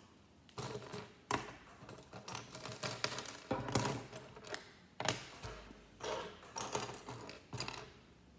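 Plastic LEGO pieces being handled and pressed together: a run of irregular clicks and short clattering rattles.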